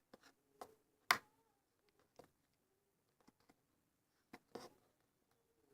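Slime being squeezed and stretched by hand, giving a scattering of faint sticky clicks and small pops, the loudest about a second in and a few more close together near the end.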